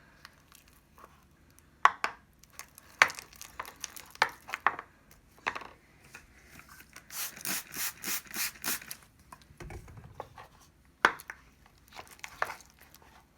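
Sharp clicks and knocks of a utensil against a container, scattered through, with a quick run of rhythmic scraping strokes near the middle, while borax activator is being made up and added to the glue for slime.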